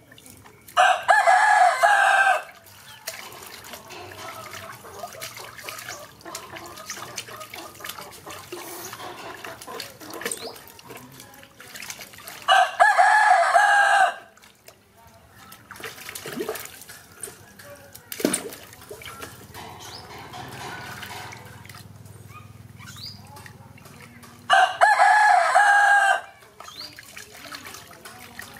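A rooster crows three times, about twelve seconds apart, each crow lasting about a second and a half and far louder than anything else. Between the crows, water splashes and drips in a plastic tub as a baby monkey is bathed.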